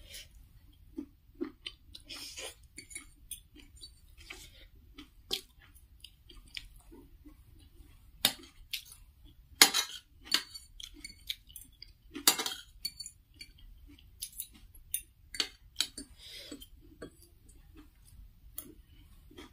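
Metal fork and spoon scraping and clinking on a ceramic plate while gathering up instant noodles, with close-up chewing. The clinks come at irregular moments, loudest about ten and about twelve seconds in.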